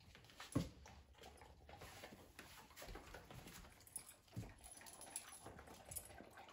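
Several poodles chewing and crunching homemade dog treats, with many small clicks and two soft thumps, one about half a second in and one about four seconds in.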